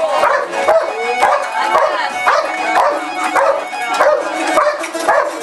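Belgian Malinois barking repeatedly, about three short barks a second.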